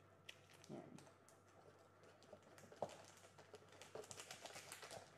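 Faint crinkling and small clicks of a plastic sauce sachet and an instant-noodle cup being handled, a little busier near the end.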